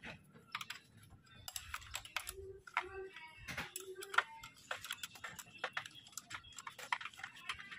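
Light, irregular metallic clicks and taps of an open-end wrench working on a car battery's terminal and hold-down nuts as the battery is being removed.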